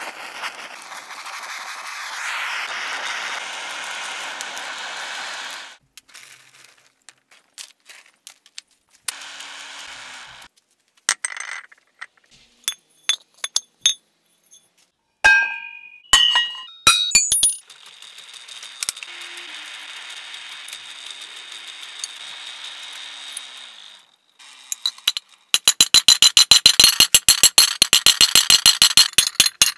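A rushing hiss of flame as the forge fire is lit, then scattered metallic clinks as a steel shield boss is handled, and, loudest of all near the end, rapid steady hammer blows on the red-hot steel shield boss, several a second.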